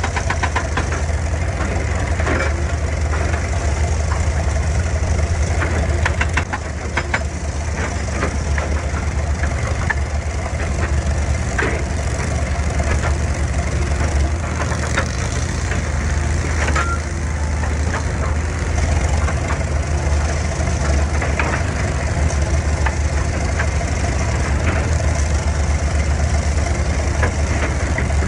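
Excavator's diesel engine running steadily with a deep hum, with scattered clanks and knocks.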